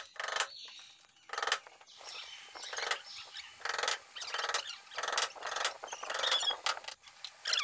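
Hammer driving small nails through a thin hardboard back panel into a cabinet frame: sharp ringing strikes roughly once a second.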